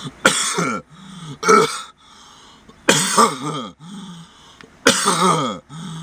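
A man coughing hoarsely: four voiced coughs about a second and a half apart, each falling in pitch.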